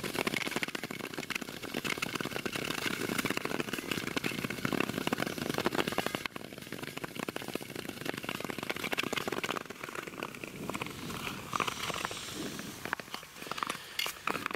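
Ice-skate blades gliding and scraping over natural ice, a steady hiss with a fine crackle. It drops off suddenly about six seconds in and becomes quieter and more broken, with separate scrapes near the end.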